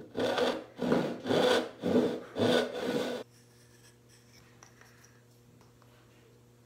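A hand tool scraping along a small walnut block in about six quick back-and-forth strokes, then it stops about three seconds in, leaving only faint room noise.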